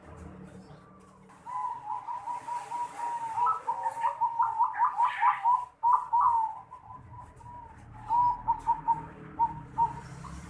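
Zebra dove (perkutut) singing in the unusual voice keepers call 'noklak'. A long stuttering run of cooing notes starts about a second and a half in and is loudest in the middle. It is followed by a few short spaced notes near the end.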